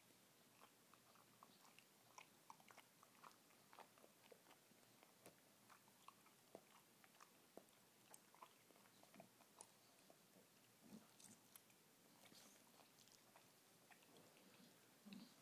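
Faint wet licking and nibbling as a Staffordshire Bull Terrier grooms another dog's muzzle and face: many small irregular mouth clicks and smacks.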